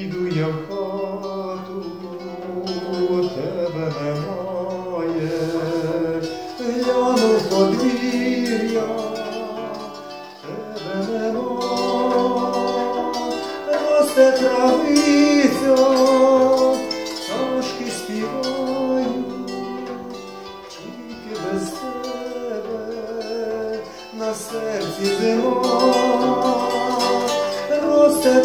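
A man singing with vibrato to his own accompaniment on an old-world bandura. Its plucked strings sound under and between the sung phrases.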